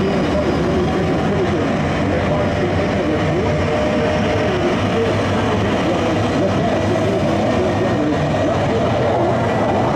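F-35's single jet engine running steadily on the ground, an even loud rush of noise with no break.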